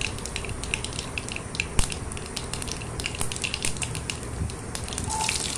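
Black mustard seeds and fenugreek seeds spluttering in hot sesame oil in an aluminium kadai: irregular sharp pops and crackles over a low steady sizzle, the seeds bursting in the oil as a tempering is fried.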